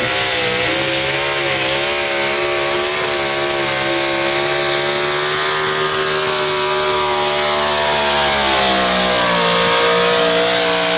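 Two-wheel-drive pulling truck's racing engine running flat out through open headers as it drags the weight-transfer sled. The pitch holds nearly steady, then drops a little about eight seconds in as the engine takes the load.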